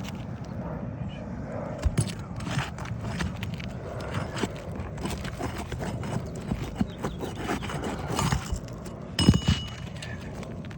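Metal roofing snake scraping and knocking against asphalt shingles and roofing nails as the nails are pried loose, with irregular taps, a sharper knock about two seconds in and a louder ringing metal clank near the end.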